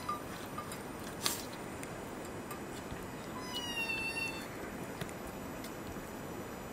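A kitten meowing once, a drawn-out call of about a second that falls slightly in pitch, about three and a half seconds in. A sharp click comes about a second in, over a steady background hiss.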